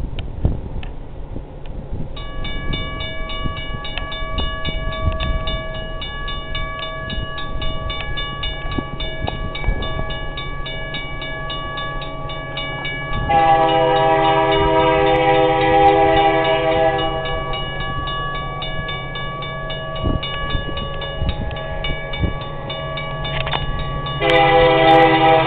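Air horn of an approaching CN EMD SD75I diesel locomotive: one long blast of about four seconds about halfway through, then a second long blast starting near the end. Under it, a level-crossing warning bell rings steadily and rapidly from about two seconds in.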